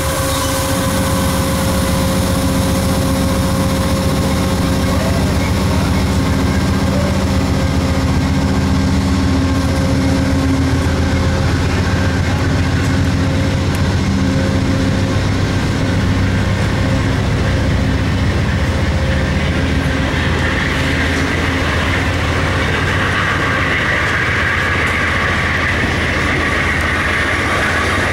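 Amtrak bilevel passenger cars rolling slowly past, with a steady low hum and wheel noise on the rails. About twenty seconds in, a brighter hiss rises as the end of the train with the cab unit comes by.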